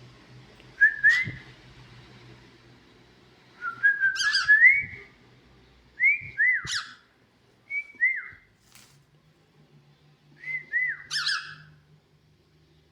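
Pet cockatiel singing: five short phrases of whistled notes that rise and fall in pitch, spaced by pauses of a second or two.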